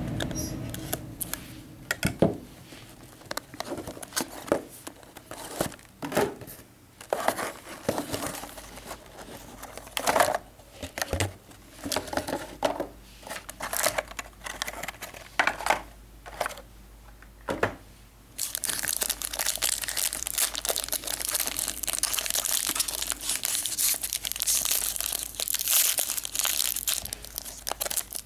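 Plastic wrapping being torn and crinkled while a sealed box of hockey trading cards is opened: scattered sharp crackles and taps at first, then from about two-thirds through, steady continuous crinkling.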